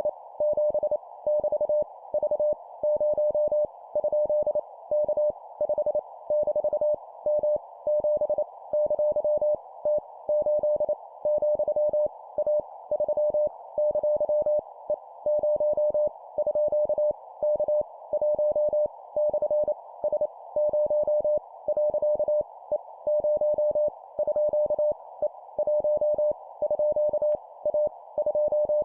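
Morse code (CW) sent at 25 words per minute: a single steady tone of about 600 Hz keyed rapidly on and off in dots and dashes spelling random letters, numbers and punctuation, with a steady hiss heard in the gaps.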